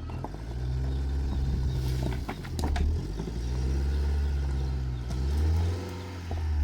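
A motor vehicle's engine running close by, a low hum that swells and dips a few times, with a few knocks about two and a half seconds in.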